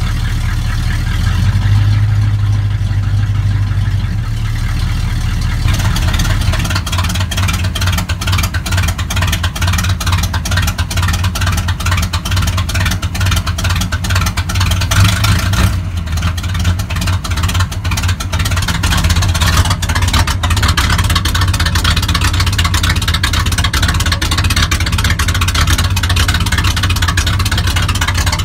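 Chevrolet C10 pickup's 350 small-block V8 idling through its exhaust: a steady low rumble at first, then from about six seconds in a choppy, rapidly pulsing note, with the engine running cold.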